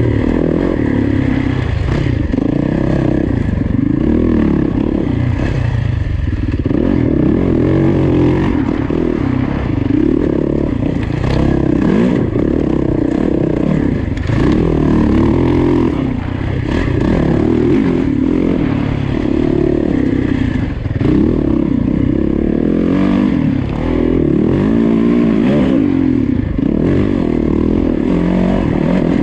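Yamaha dirt bike engine being ridden hard, its revs rising and falling again and again with throttle and gear changes, and short clattering knocks from the bike over the rough trail.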